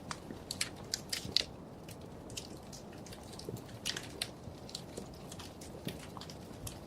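Wood fire crackling in a fireplace: irregular sharp pops and snaps over a soft steady hiss, with a quick cluster of pops in the first second and a half.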